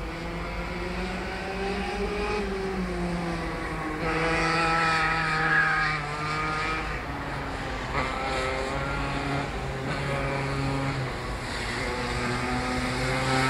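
Rotax 125 two-stroke kart engine heard lapping the circuit, its pitch rising and falling as the driver accelerates and lifts through the corners. It grows louder near the end as the kart approaches.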